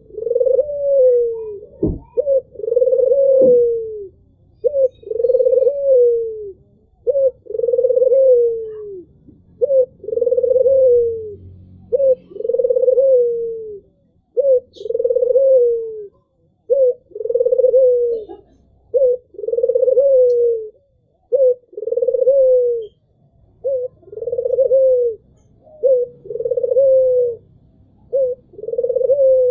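White (albino) puter, a domestic ringneck dove, cooing steadily. Each call is a short note followed by a longer falling coo, repeated about every two seconds without a break.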